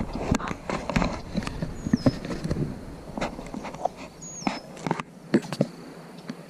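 Footsteps on grass and rubbing against a chest-mounted camera as its wearer walks downhill, making irregular knocks and rustles that thin out after the first few seconds. A bird gives a short falling whistle twice.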